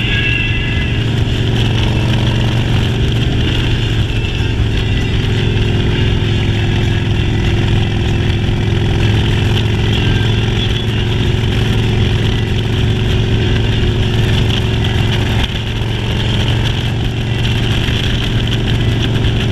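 Motorcycle engine running steadily during a ride, a constant low hum with a steady hiss above it and only a brief dip about fifteen seconds in.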